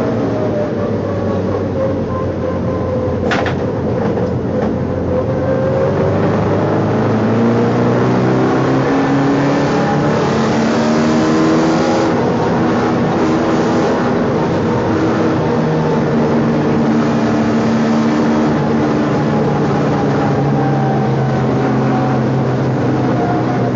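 Race car engine running hard, heard from inside the stripped, roll-caged cabin: the revs fall over the first few seconds, with a sharp knock about three seconds in, then climb and hold high under load.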